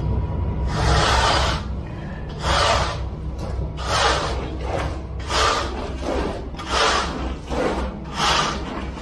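A hand tool scraping over wet concrete along the edge form in six regular strokes, about one every second and a half, with a steady low rumble underneath.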